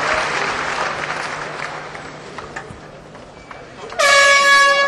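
Crowd applauding, fading over about three seconds. About four seconds in, a sudden loud bell-like ring with a clear pitch sounds for about a second, marking the start of round one.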